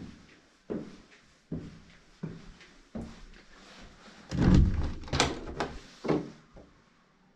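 Footsteps climbing stairs, about one step every 0.7 seconds, then a door handle and latch rattling and clicking as an apartment door is opened, with a few sharp clicks about five to six seconds in.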